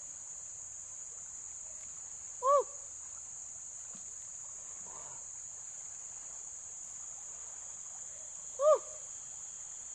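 Steady high-pitched drone of insects, joined twice by a short, loud call that rises and falls in pitch: once about two and a half seconds in and again near the end.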